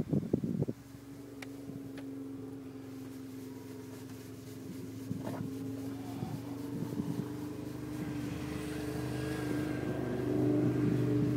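A motor vehicle engine running with a steady drone that slowly grows louder, after a few short knocks in the first second.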